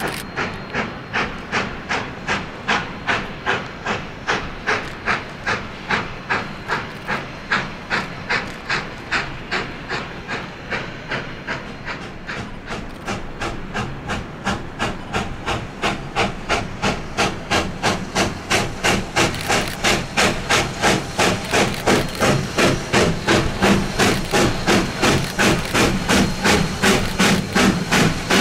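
Narrow-gauge K-36 #480, a 2-8-2 steam locomotive, working a train with a steady, even beat of exhaust chuffs, about two and a half a second. The beat grows louder from about halfway through as the engine comes closer.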